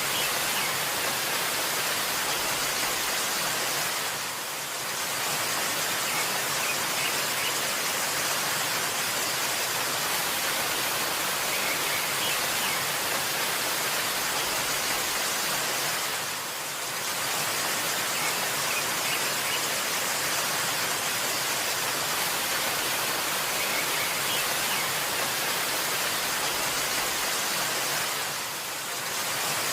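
Waterfall: a steady rush of falling water that dips briefly about every twelve seconds, with a few faint, short bird chirps now and then.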